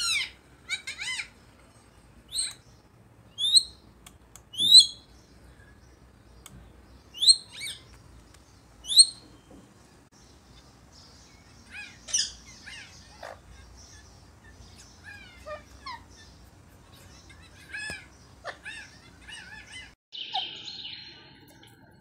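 Indian ringneck parakeet calling: short, sharp rising squawks every second or two, then softer, busier chattering calls in the second half.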